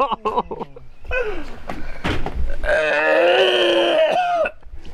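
A man retching and vomiting: a few short heaves, then one long, loud groaning heave that breaks off about four and a half seconds in.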